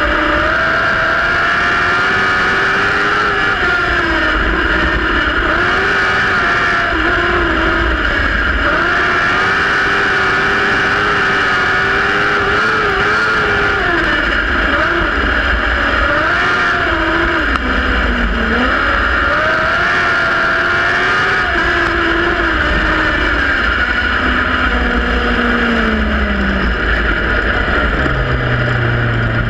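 Compact speedcar's engine heard onboard, running hard around a dirt oval, its pitch rising and dipping as the throttle comes off and back on through the turns. Near the end the revs fall away to a low steady note as the car slows.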